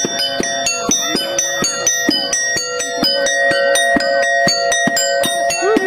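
Gamelan-style percussion music of a topeng monyet monkey show: ringing metal gong-chime tones over quick, even drum strokes.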